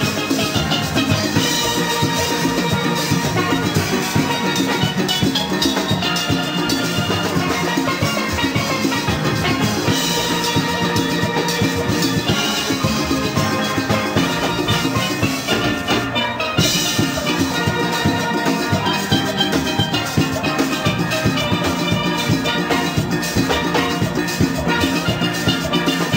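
Background music with a steady percussive beat, briefly dropping out about sixteen seconds in.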